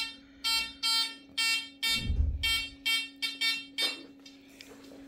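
Amiral XP-4 discriminating metal detector beeping in a quick series of short pitched tones, about two to three a second, as a bracelet is swept past its coil at about 45 cm: the detector signalling the target at that depth. The beeps stop near four seconds in, over a steady low hum, with a soft thud about two seconds in.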